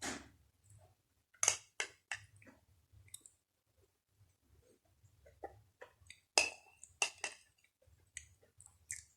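Close-up eating sounds of uphuthu (dry crumbly maize pap) with sour milk: chewing with sharp wet mouth clicks and lip smacks, bunched in two flurries.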